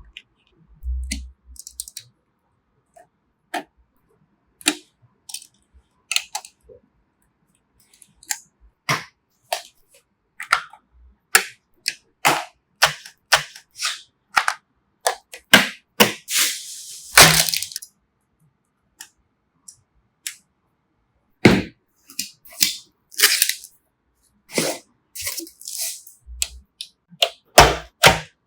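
Sharp plastic and metal clicks, snaps and taps of computer parts being handled and fitted together during a PC build. They come at irregular spacing, often several a second, with a brief rustling scrape about two-thirds of the way through and a few dull thuds.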